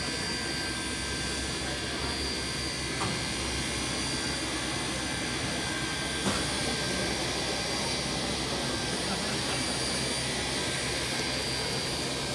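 Steam locomotive 3526 simmering in steam: a steady hiss with thin high whining tones running through it. Two faint clicks come about three and six seconds in.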